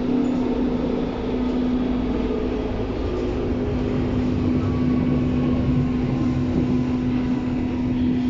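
Berlin U-Bahn train running, heard from inside the car: rumble with a strong, steady low tone that sets in right at the start, and fainter higher tones that slowly sink in pitch.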